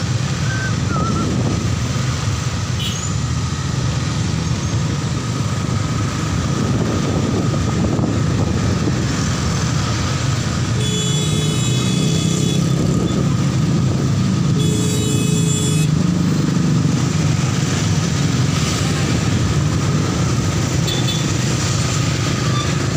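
Motorcycle engines and street traffic running steadily while riding in slow city traffic. Two held tones sound over it, one about eleven seconds in and a shorter one about fifteen seconds in.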